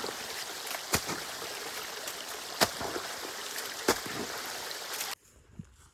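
Water rushing steadily down a drainage channel, with a few sharp knocks over it, cutting off abruptly about five seconds in.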